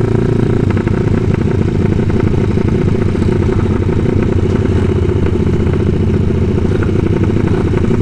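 Motorcycle engine running steadily at a constant speed, with no revving.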